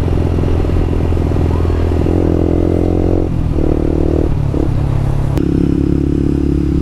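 Yamaha R15 v2 motorcycle's single-cylinder engine running while ridden, its engine note changing pitch in steps a few times.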